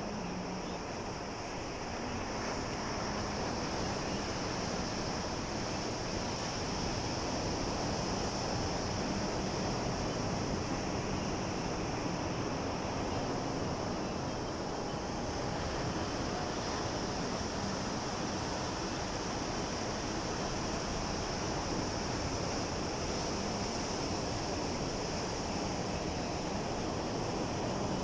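Sea waves washing in a steady rush of noise with no distinct breaks standing out, rising slightly a few seconds in.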